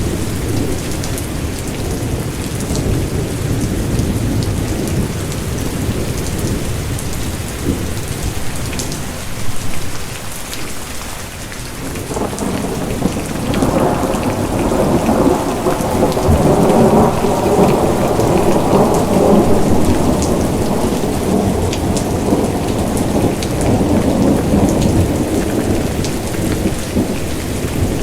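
Steady rain with fine drop ticks, under rolling thunder. The rumble eases about ten seconds in, then a long roll builds from about twelve seconds, is loudest in the middle and slowly dies down.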